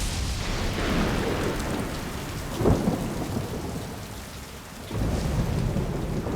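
Cinematic thunderstorm sound mix: steady heavy rain, with a loud thunderclap about two and a half seconds in that rumbles away. The storm dies down briefly just before the five-second mark, then swells again.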